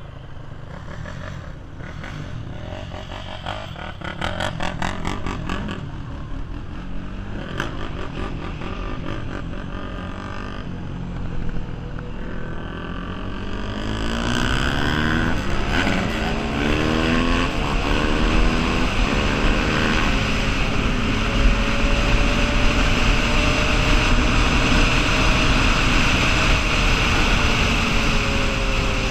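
Honda 420 ATV's single-cylinder engine running as it is ridden, quieter at first, then accelerating about halfway through with the engine pitch sweeping up. It settles into a steady drone at speed, with strong wind noise on the microphone.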